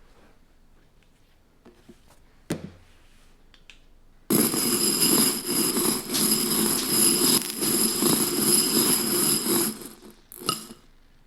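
Airsoft BBs poured into a bowl: a dense, steady rattling cascade of pellets that starts suddenly about four seconds in and stops after about six seconds, with the bowl ringing. A single sharp click comes before it, and another just after.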